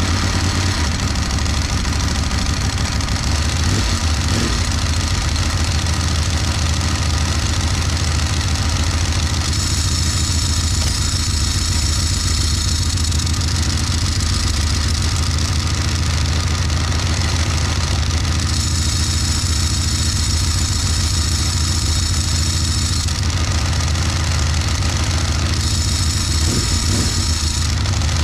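Ducati 1198S's 90-degree V-twin idling steadily just after starting, with its dry clutch uncovered and a brand-new STM slipper clutch spinning. The clutch runs quietly because it has little play between its engagement points. A higher hiss comes and goes three times over the idle.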